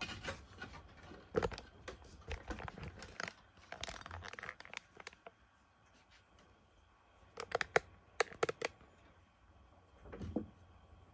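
Cats clambering on a wooden shelf unit: claws scraping and paws knocking on the boards, busy for the first few seconds, then a quick cluster of sharp knocks about eight seconds in and a duller thump near the end.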